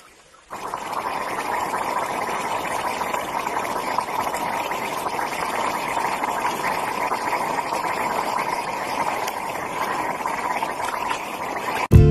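Gas burning as a flame from a hole in river ice, a steady hissing rush that starts suddenly about half a second in. It cuts off near the end as strummed guitar music begins.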